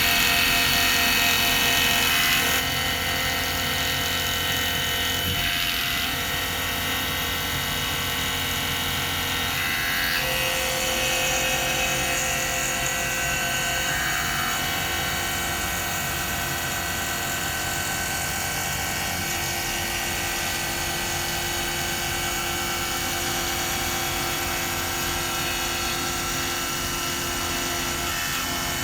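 CNC milling machine cutting a cam track: a steady spindle whine with several held tones over the cutting noise, a little louder in the first couple of seconds.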